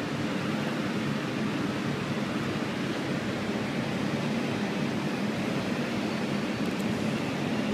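Steady mechanical drone with a hiss over it, even and unbroken throughout, the kind of constant machinery noise heard beside a standing electric train.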